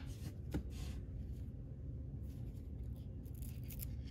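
Baseball cards sliding against each other as they are flipped through by hand, each card moved from the front to the back of the stack: a few soft swishes, with a light click about half a second in.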